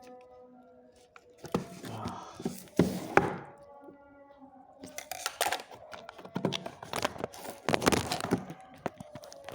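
Hands handling a boxed Hot Wheels toy set and its packaging: scattered knocks, clicks and short rustles in two spells, the loudest around three seconds in and again near eight seconds.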